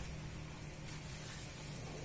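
Faint steady hiss and low hum of vermicelli cooking in a pan of butter and condensed milk while it is stirred dry, with a light click at the very start.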